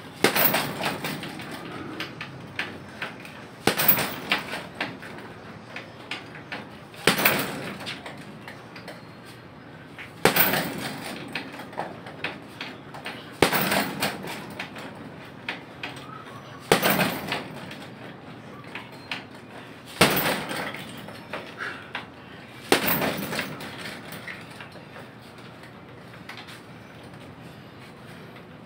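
Strikes landing on a hanging heavy punching bag: a hard thud about every three seconds, eight in all, with lighter hits between. The hitting stops about three-quarters of the way through.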